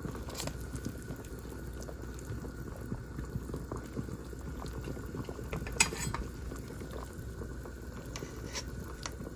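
A pot of beef pho broth simmering over medium heat, bubbling steadily with many small pops. A brief click comes about half a second in, and a sharper one near six seconds.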